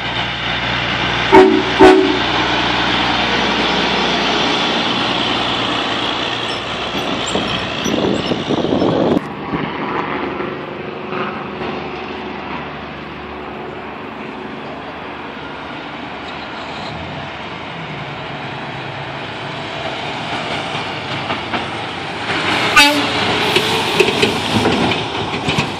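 Semi truck's train horn sounding: a short blast, then a long held chord for several seconds as the truck passes. Traffic noise follows, and another short horn blast comes near the end.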